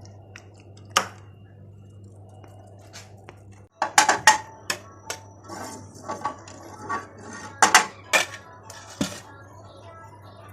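Kitchen utensils and dishes clinking and knocking: a single knock about a second in, then clusters of clinks about four seconds in and again near eight seconds, over a steady low hum.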